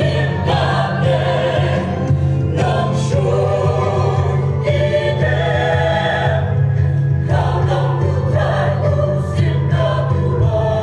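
Mixed church choir of women's and men's voices singing together through microphones, in phrases that break and start again every two to three seconds.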